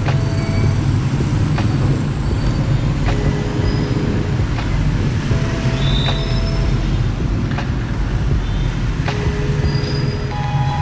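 Background music: a slow beat with short held notes over a steady low drone.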